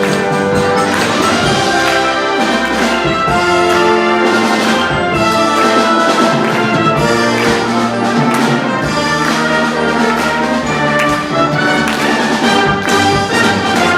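High school wind band playing loudly, with brass (trumpets and trombones) carrying sustained chords and a rhythmic beat.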